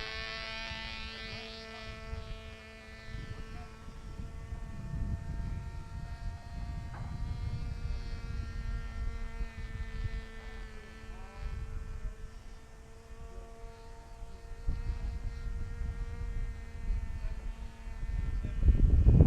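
Motor of a small House of Balsa 2X4 powered RC glider running in the air, a steady high-pitched drone that wavers slightly in pitch. Wind buffets the microphone throughout, with a loud gust rumble near the end.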